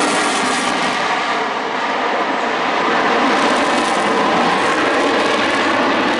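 F-35A Lightning II's single Pratt & Whitney F135 afterburning turbofan in a flypast with the afterburner lit: a loud, steady rush of jet noise.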